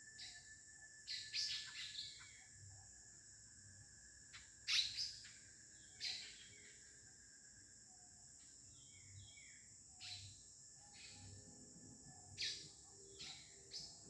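Faint short bird chirps, scattered and irregular, over a steady high-pitched drone of cicadas: birds settling to roost at nightfall.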